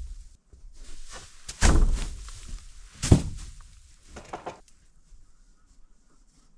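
A few heavy thuds and knocks: a loud one about a second and a half in, a sharp louder one about three seconds in, then a quick pair of lighter knocks before it goes quieter.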